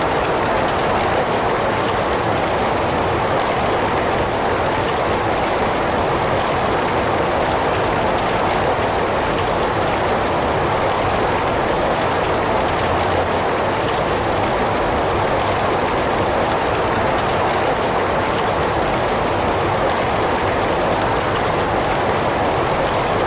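Heavy rain falling steadily, an even, unbroken hiss with no thunder or single drops standing out.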